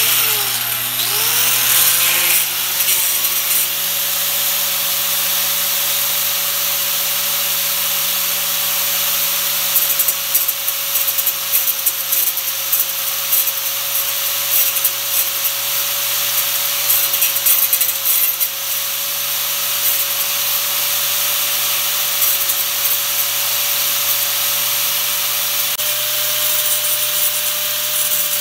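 Angle grinder with a diamond wheel spinning up and then grinding steadily against the face of a turning sandstone grinding wheel. It is truing the stone, taking down its high spots. A steady motor whine sits under a continuous gritty hiss of stone being ground away.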